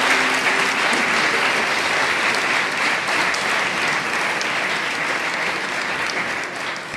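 Crowd applauding: dense, steady clapping that slowly gets quieter toward the end.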